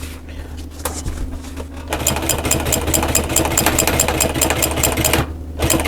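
Sewing machine stitching a line across a seat cover: its motor hums steadily, then from about two seconds in the needle runs fast, rapid even stitching for about three seconds, stops briefly, and starts again for a short run near the end.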